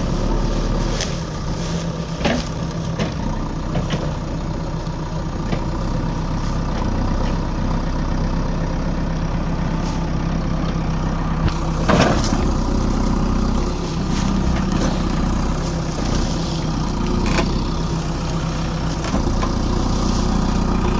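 JCB backhoe loader's diesel engine running steadily at low revs, with a few sharp knocks, the loudest about twelve seconds in.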